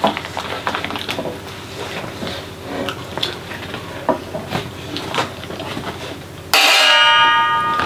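Light clinks and scrapes on metal plates and the crinkle of a snack packet, as small scattered clicks. About six and a half seconds in, a sudden loud ringing sound of several steady pitches cuts in and is the loudest thing.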